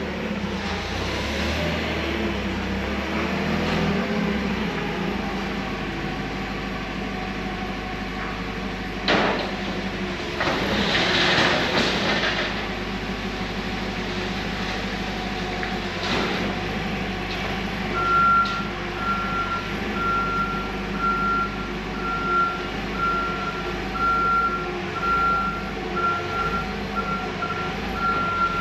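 Steady mechanical hum with a sharp knock about nine seconds in and a couple of seconds of hissing just after. From about eighteen seconds in, a reversing alarm beeps at a single high pitch, about once a second.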